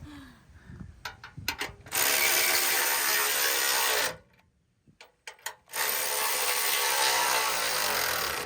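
Cordless power tool, most likely an impact wrench, run in two bursts of about two seconds each to tighten the bumper bolts, with a few clicks before the first burst.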